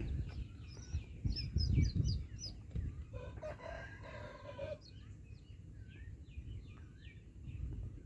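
Chick peeping from inside a pipped egg: many short, high cheeps falling in pitch. A rooster crows once, for about a second and a half, starting a little after three seconds in. Bursts of low rumble come through, loudest about two seconds in.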